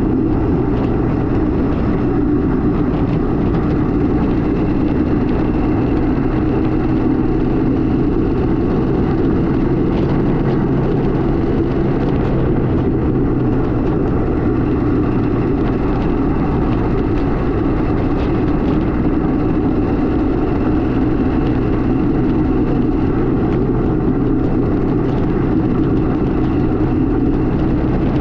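Kawasaki KMX200's two-stroke single-cylinder engine running steadily under way, without big changes in revs.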